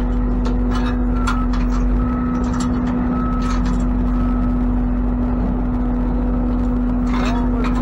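Ford F-550 tow truck's engine idling, a steady low hum that does not change.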